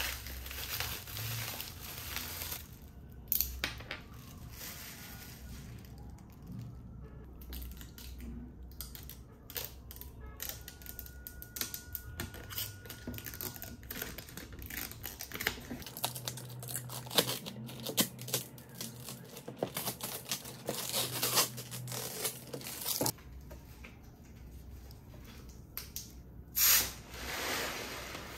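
Unwrapping a clear plastic storage container: crinkling and tearing of plastic wrapping and protective film being peeled off, with many small clicks and taps of hard plastic.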